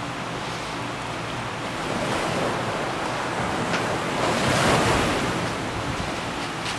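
Ocean waves washing: a steady hiss that swells to a peak about four to five seconds in, then eases off.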